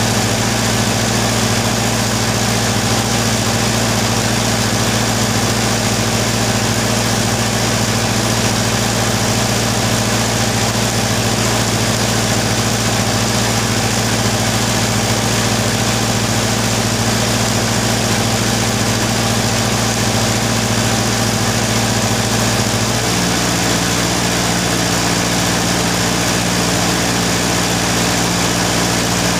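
Steady, loud hum of the arc-welding power supply running during stick welding, with a constant hiss above it. About 23 s in the hum's tone shifts, near the point where the welding stops.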